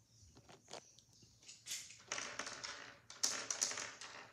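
Rustling and light tapping from hands handling things close to the microphone: a few quick clicks, then several short bursts of rustle in the second half.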